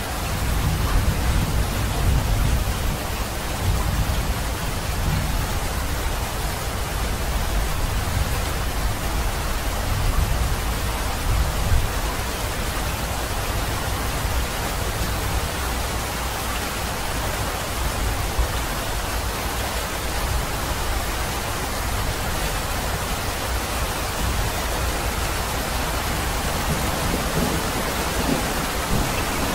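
Steady rain hissing, with a deep low rumble underneath that is strongest in the first dozen seconds.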